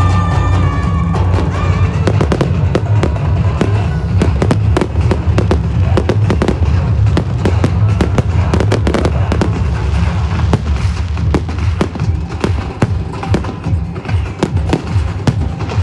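A fireworks display going off: rapid sharp bangs and crackling, over loud music with a heavy bass.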